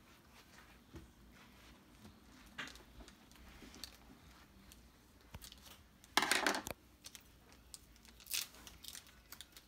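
Foil Pokémon card booster pack being cut with scissors and pulled open by hand: soft crinkles and snips, with one louder crinkling tear about six seconds in.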